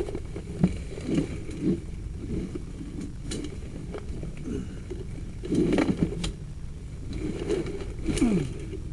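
Sewer inspection camera and its push rod being worked through a drain line: irregular knocks and scrapes over a low steady rumble. The loudest knocks come in the second half, where the camera head is catching on mineral buildup in the pipe.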